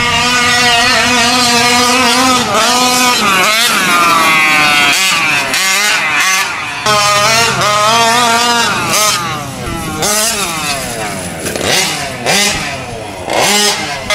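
Two-stroke gas engine of a large-scale 30 Degrees North RC truck revving up and down as the truck is driven hard, its pitch rising and falling again and again, with brief lets-off.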